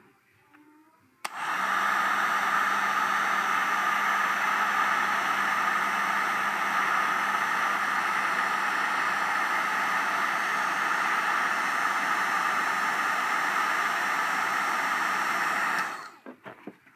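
A handheld hair dryer is switched on about a second in and blows steadily with a low hum underneath. It cuts off about a second before the end.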